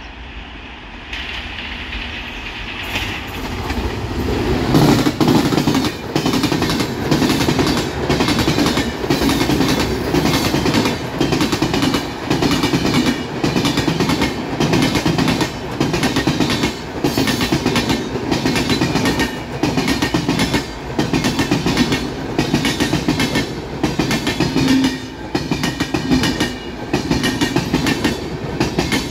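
Passenger train hauled by a WAP7 electric locomotive passing at speed. The sound swells over the first few seconds as the train comes close. Then the coaches' wheels keep up a steady clickety-clack over the rail joints, about one clack a second.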